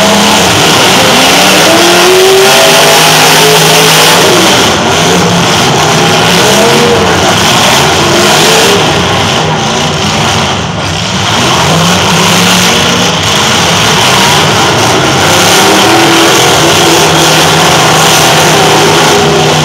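Several demolition derby car engines revving hard at once, their pitches rising and falling over one another, loud and continuous.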